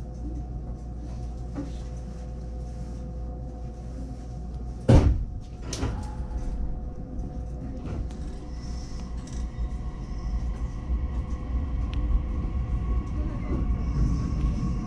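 Commuter train at a standstill with a steady hum, then its doors shut with a loud thud about five seconds in, followed by a softer knock. The train's low running noise then slowly builds as it pulls away.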